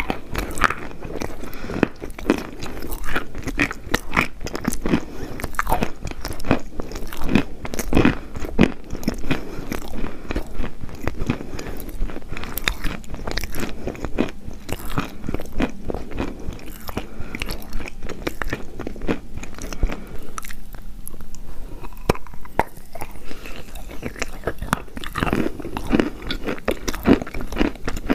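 Chalk being bitten and chewed: dense, irregular crunching and crackling. It thins out briefly about two-thirds of the way through, then picks up again.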